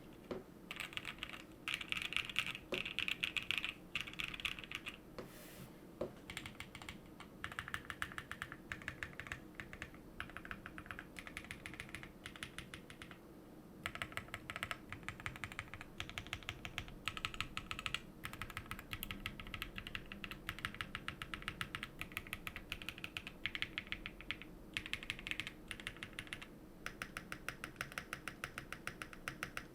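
Continuous typing on a Fox Labs Leaf 65 custom mechanical keyboard with Gazzew Boba LT switches, an aluminum plate, a PE foam mod and Durock V2 stabilizers: rapid runs of keystrokes, with brief pauses about 13 and 26 seconds in.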